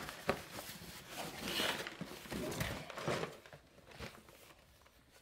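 Cardboard rustling and scraping as a boxed Lego set is slid out of a cardboard shipping box, with a couple of sharp knocks, one near the start and one about four seconds in.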